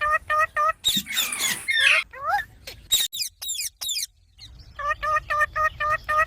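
Green parrot calling: runs of short, evenly repeated pitched notes, about five a second, at the start and again from near the end, with rising squawks and quick high chirps in between.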